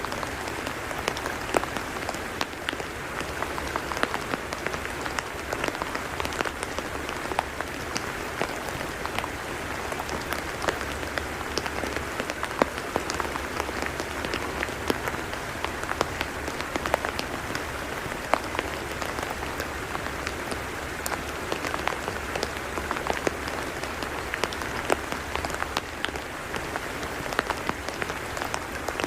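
Rain falling steadily on a tidal mudflat: a continuous patter dotted with many sharp individual drop ticks.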